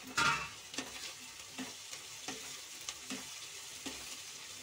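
Wooden spatula stirring chopped capsicum into onions frying in butter in a non-stick kadhai. There is a louder scrape right at the start, then a scrape against the pan about every three-quarters of a second over a faint sizzle.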